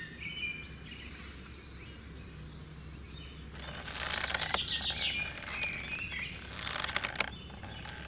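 Birds chirping in the background, with two stretches of rustling and scraping, loudest about four seconds in and again near seven seconds, from jute twine being pulled and tied around cane stalks on a toy trailer.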